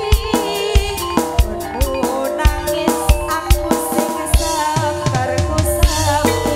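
Live campursari music: a female sinden singing over gamelan and drums, with a steady beat of drum hits. About five seconds in, the drumming turns to a run of deep drum strokes that bend downward in pitch.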